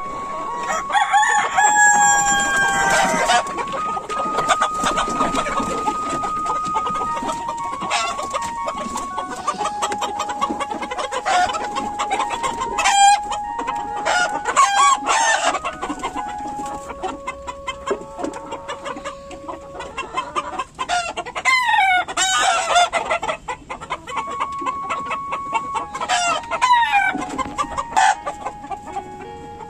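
A flock of domestic chickens: hens clucking while roosters crow several times, with the loudest crows about two seconds in and again around thirteen, fifteen and twenty-two seconds.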